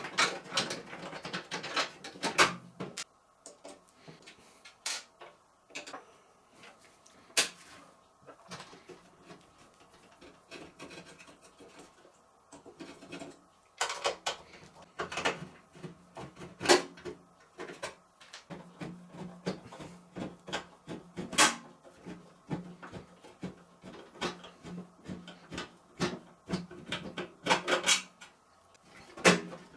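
Irregular clicks, knocks and scraping of tools and metal parts being handled as a microwave oven is taken apart, over a low steady hum that drops out for a stretch in the middle.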